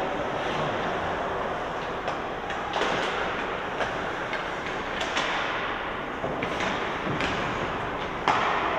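Ice hockey game sounds in a rink: a steady scraping wash of skates on ice, broken by several sharp clacks of sticks and puck, the loudest near the end.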